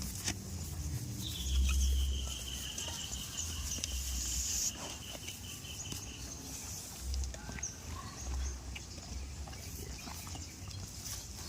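Outdoor farm ambience: irregular low rumbling, a high hiss that stops about five seconds in, and a long thin whistling tone through the first half, with no clear bleat.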